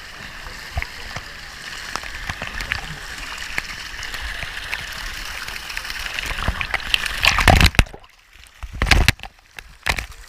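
Wave pool water sloshing and lapping with scattered small splashes. About seven seconds in come a few loud, close splashes, with the sound dropping out briefly between them as the water reaches the microphone.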